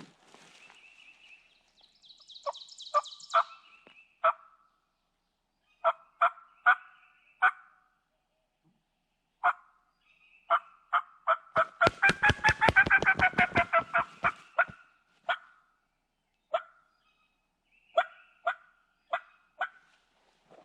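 Wild turkey calling: a string of short, sharp call notes, then about 12 seconds in a rapid rattling gobble lasting about three seconds, followed by more short notes.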